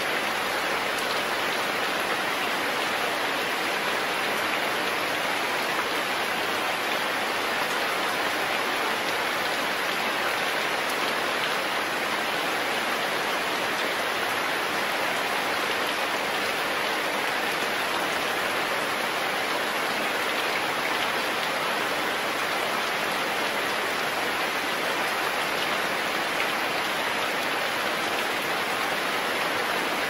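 Steady rainfall, an even hiss of rain hitting surfaces, with no change in strength.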